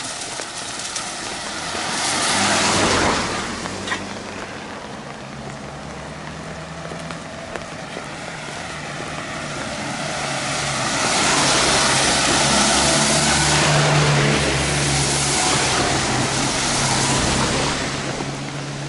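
Road traffic: a vehicle passes briefly about two seconds in, then a longer, louder pass with a steady engine tone from about ten seconds in until shortly before the end.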